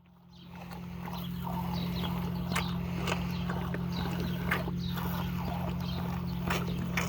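Cattle hooves clopping and knocking on a concrete barn floor, scattered irregular steps over a steady low machine hum, fading in over the first second or so.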